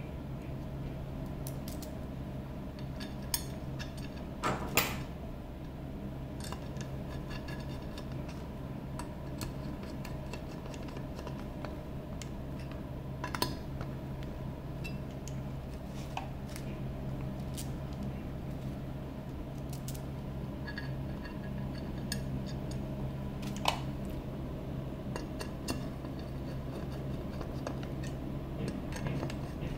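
Small metal screws and a bracket clinking, and a hand screwdriver turning screws into a black metal chassis panel: scattered sharp clicks, the loudest about five seconds in, over a steady low hum.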